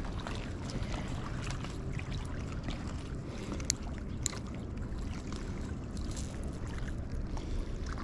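Steady outdoor waterside ambience, a low rumble and hiss typical of wind and water. Two sharp clicks come about halfway through.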